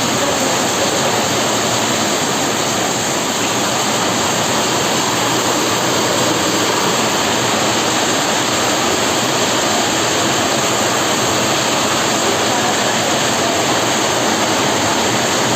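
Heavy rain pouring, a steady, even rush of noise that does not let up.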